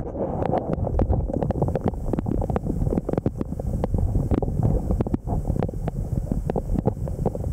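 Underwater sea noise just below the surface: a steady low rumble of moving water with many irregular clicks and crackles.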